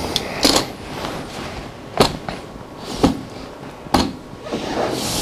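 A few short, sharp knocks and clicks, about one a second, from hands and glasses set down on a wooden lectern close to the microphone, over low room noise.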